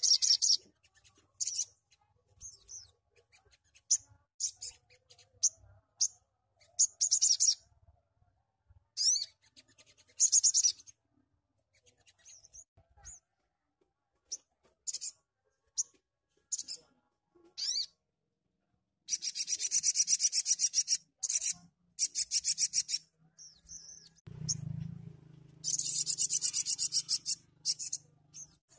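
Sunbird singing: rapid, high, buzzy trilling phrases that start and stop with short silences between them, the longest about two seconds each, once past the middle and again near the end.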